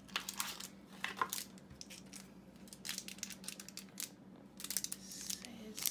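Thin clear plastic sticker wrapper crinkling and crackling in short, irregular bursts as fingers handle and open it, over a faint steady hum.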